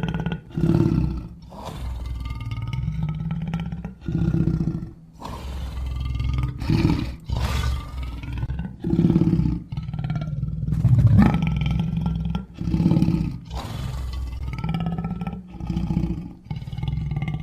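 Lion roaring and growling: a string of deep calls, each a second or two long, with short breaks between them.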